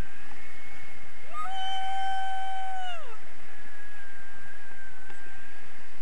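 A high-pitched voice gives one held cry of about a second and a half, sliding down at the end, over a steady rush of wind on the microphone in flight under a tandem paraglider.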